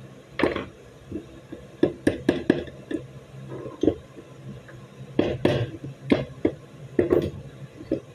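Small metal pistol parts and hand tools clicking and clinking as a Beretta 92FS slide is taken apart with a screwdriver on a wooden workbench: about a dozen sharp knocks, several in quick clusters about two and five seconds in.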